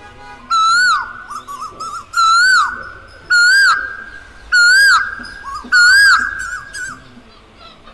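Male Asian koel calling: five loud, swooping 'ko-el' notes, each rising then dropping in pitch, repeated about once every 1.2 seconds.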